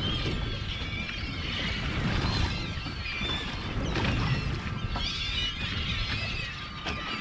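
A flock of seabirds working over a feeding school of striped bass, many overlapping short calls at once, over a steady low rumble.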